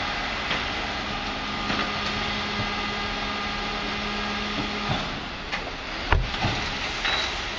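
MAN TGS 26.320 garbage truck with a Faun Variopress rear-loader body running as its lifter tips and lowers a plastic wheelie bin: a steady hum that stops about five seconds in, with the bin knocking and clattering against the lifter. The loudest bang comes about six seconds in.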